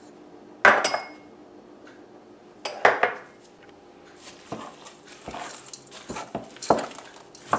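Metal spoon and dishes knocking and scraping against a stainless steel mixing bowl. A ringing clank comes about a second in and another near three seconds, then shorter clinks and scrapes follow as the spoon works through the mixture.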